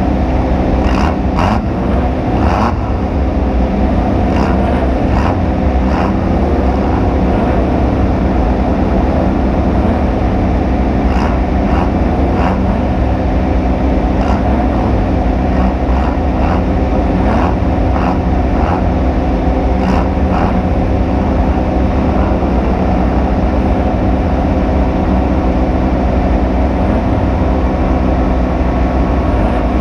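Off-road race vehicle running hard: a steady, loud engine and drivetrain sound, broken by short sharp knocks and rattles in a few clusters.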